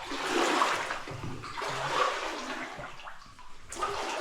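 Water splashing and sloshing in uneven swells as someone wades through standing water in a flooded coal mine passage.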